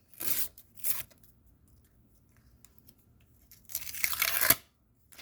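A sticker pack wrapper being torn open by hand: two short rips in the first second, then a longer, louder tear near the end.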